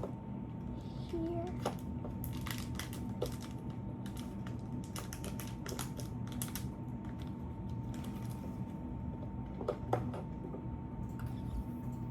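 Irregular small clicks and taps of hands handling slime-kit pieces and containers, over a faint steady hum.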